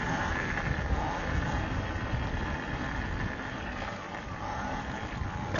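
Electric dirt bike being ridden: a faint steady motor whine over a low rumble, slowly growing quieter.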